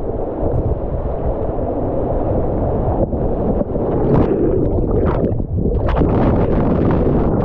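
Floodwater churning over a low-head dam, heard through a waterproof camera at and below the surface: a loud, steady, muffled rush of water, with short splashes against the lens about four, five and six seconds in.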